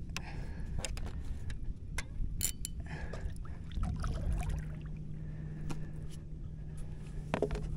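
Paddle strokes through the water beside a stand-up paddleboard, the blade dipping and sloshing, with a few sharp knocks over a low rumble.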